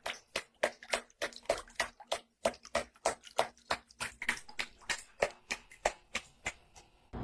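A quick, uneven run of small sharp taps or clicks, about four a second.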